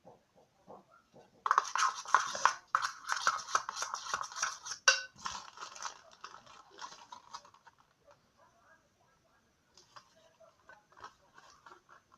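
A spoon stirring rapidly and scraping against a bowl, mixing cornstarch into shampoo to thicken homemade slime. The scraping starts about a second and a half in and is dense for several seconds, then thins to scattered faint scrapes.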